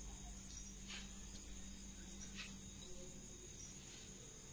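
Faint insects chirping: a steady high-pitched trill, with several short, sharper chirps scattered through.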